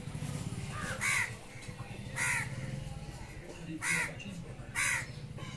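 A bird calling four times, short loud calls spaced about a second apart, over a steady low hum.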